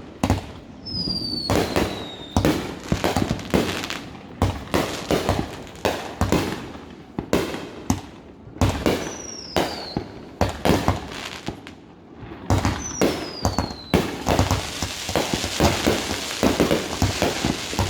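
Fireworks bursting in rapid, repeated bangs, with three short whistles falling in pitch. A dense crackling rush comes in near the end.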